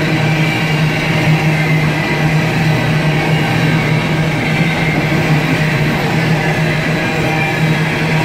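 CSX coal train's open hopper cars rolling past: steel wheels running on the rails, loud and steady, with a constant low hum underneath.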